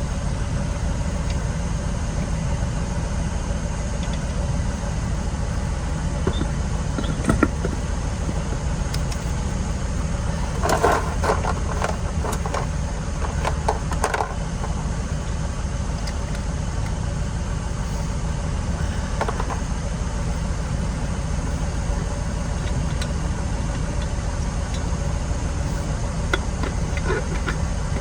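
A car engine idling steadily, with a few short metallic clinks, a cluster of them about eleven and fourteen seconds in.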